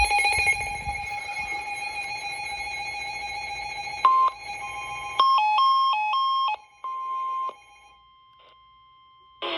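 Electronic alert tones from a weather-radio or EAS receiver. A steady tone runs for about five seconds, then a run of beeps switches between two pitches several times a second, then a single held beep cuts off.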